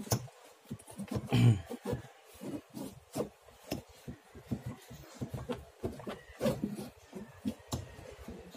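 Rust-stuck clutch lining being wiggled by hand in the clutch housing of a Yamaha Mio i125 scooter: irregular small clicks and metal-on-metal rubbing, with one louder knock about a second and a half in. Corrosion has seized the lining to the housing, a cause of clutch dragging.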